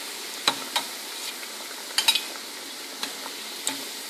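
Mutton keema kebabs deep-frying in hot oil in a steel pot: a steady sizzle. Over it come several sharp clicks of a metal slotted spoon knocking against the steel pot as the kebabs are lifted out.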